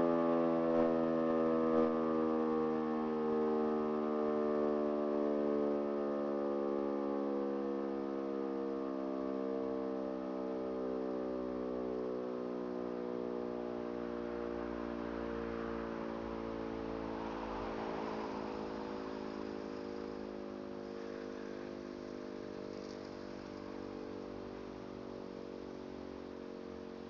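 E57 motor siren winding down after being switched off: its tone falls slowly and steadily in pitch and fades away as the rotor coasts to a stop.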